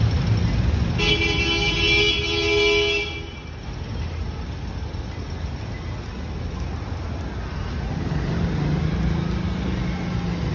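A vehicle horn sounds one long honk of about two seconds, starting about a second in, over the steady low rumble of street traffic. Near the end a low engine hum grows louder.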